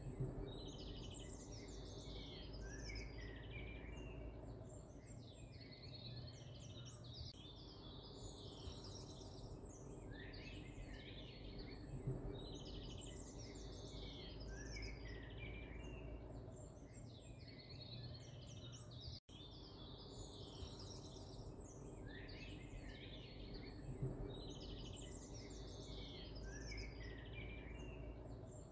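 Songbirds chirping and trilling, the same stretch of song recurring about every twelve seconds over a steady low hum. The sound cuts out for an instant about nineteen seconds in.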